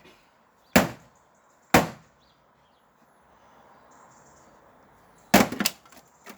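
An old TV being struck with heavy blows: three hard, sharp knocks, about a second apart for the first two, then a third a few seconds later followed by a quick rattle of smaller knocks.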